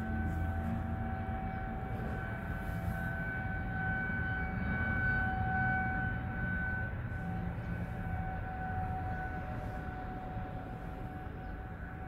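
Federal Signal 2001-series outdoor tornado warning sirens sounding a steady tone during a monthly test, heard from inside a parked car. The tone swells to its loudest about halfway through and then eases as the rotating siren turns, over a constant low rumble.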